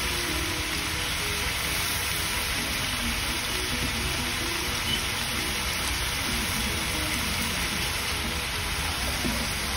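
Chicken, bell peppers and freshly crumbled leftover rice sizzling steadily in hot oil in a wok.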